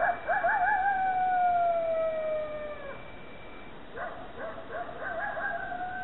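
Coyote howling: a warbling howl that slides into a long, slowly falling note for about three seconds. A few short rising yips follow about four seconds in, then another wavering howl begins.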